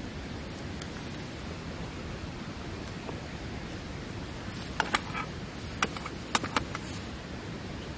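A steady hiss of background noise. From about halfway in, a quick cluster of five or six sharp clicks and taps stands out over the hiss.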